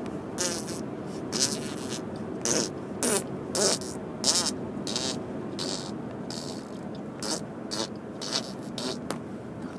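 A young boy making mouth noises: a string of short, irregular puffs, hisses and spluttering lip buzzes, some with a bit of voice gliding up and down.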